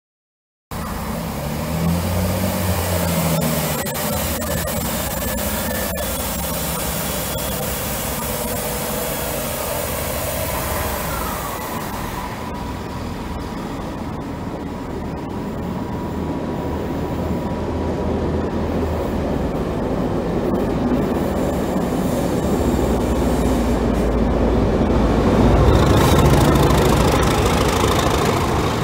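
A locomotive-hauled test train running past: the coaches rumble steadily over the track, with a brief thin wheel squeal about ten seconds in. The Class 37 diesel locomotive's English Electric engine then grows louder, and is loudest near the end as the locomotive goes by.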